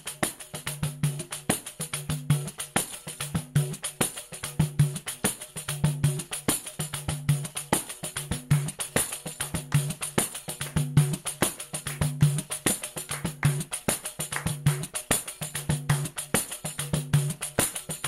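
Background instrumental music with a fast, steady percussion beat and a repeating low bass figure.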